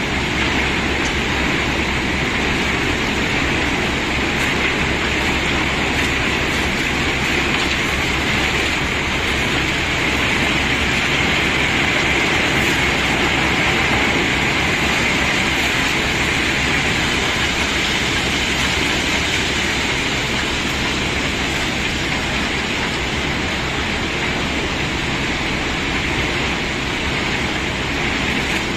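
A load of cobblestones pouring out and rattling against one another as it is unloaded, a dense, unbroken clatter.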